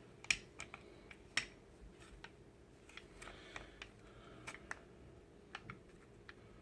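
Faint, scattered clicks and light scrapes of an aluminum magwell being handled and pushed into the polymer grip of a Glock 17 Gen 4 frame, with the two sharpest clicks in the first second and a half.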